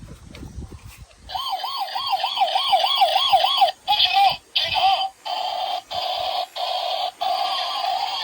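Electronic toy sound effect: a siren-like tone warbling up and down about four times a second, then breaking into a run of short repeated blasts with brief gaps between them.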